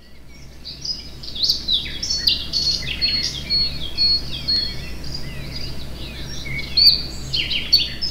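A chorus of songbirds chirping and singing, many short overlapping calls and whistles, swelling in over the first second.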